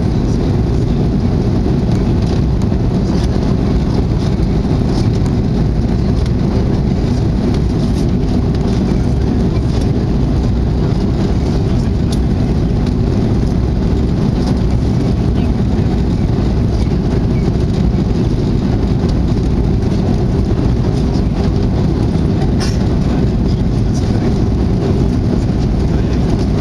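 Steady low roar in the cabin of an Airbus A340-600 climbing out after takeoff: its four Rolls-Royce Trent 500 engines and the rush of air over the fuselage.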